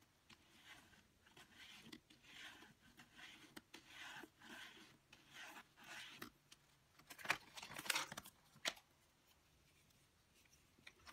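Paper and card being handled: faint scraping strokes about once a second, then a few sharp clicks about seven to nine seconds in.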